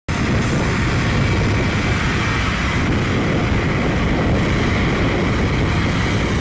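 An airport runway broom truck running steadily, its engine rumbling under the hiss of the spinning rotary broom sweeping snow off the pavement.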